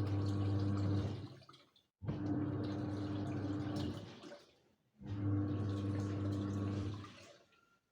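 Samsung top-loading washing machine agitating its load in the wash cycle: the motor hums with water churning in runs of about two seconds, stopping briefly in between, three times.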